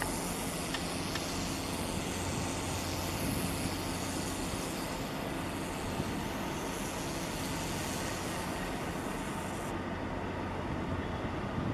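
Steady low engine rumble mixed with outdoor background noise, with no distinct events.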